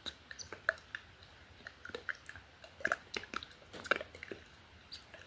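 Close-miked ASMR mouth sounds: soft, irregular wet clicks and smacks of the lips and tongue.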